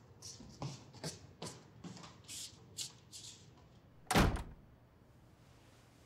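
Light footsteps walking away across a floor, then a door shutting with a thud about four seconds in.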